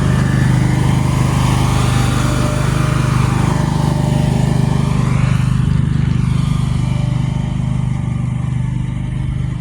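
An engine running steadily with a low hum, with a swell of rushing noise about halfway through.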